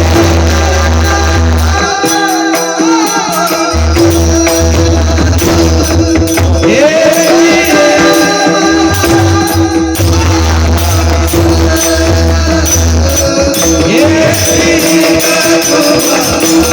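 Singing accompanied by pakhawaj drum, with a steady held drone and jingling percussion.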